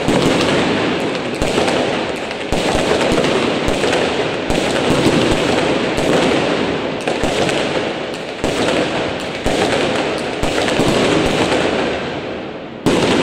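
Fireworks going off in quick succession: a dense, unbroken crackle of bangs and pops that eases slightly before one sharp, loud bang near the end.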